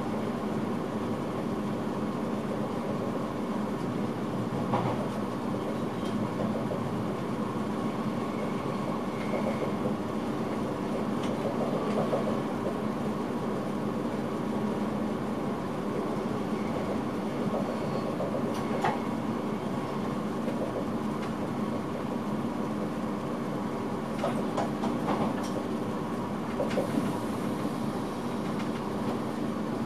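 Electric intercity train running along the track, heard inside the driver's cab: a steady hum and rolling noise, with sharp clicks from the wheels on the rails here and there, several of them close together near the end.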